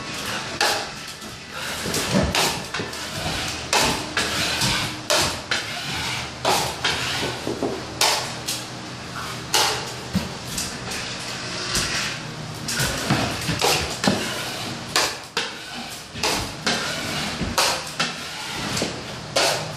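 A steel drywall taping knife scrapes and wipes joint compound along taped wall-to-ceiling angles, with irregular sharp metal clacks and taps of the tools.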